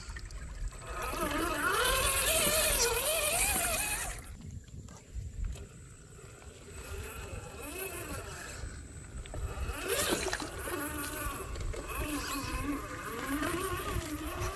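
RC car motor whining, its pitch rising and falling with the throttle. It is loudest for a few seconds near the start, dips away briefly, then runs on at changing speed.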